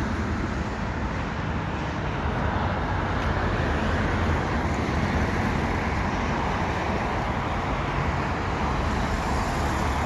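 Road traffic: cars passing close by on the service road over a steady rush of highway traffic, tyre and engine noise with no single sound standing out.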